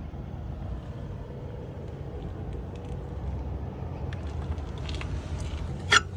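Steady low rumble of a motor vehicle running nearby, with a few light clicks in the second half and a sharp click just before the end.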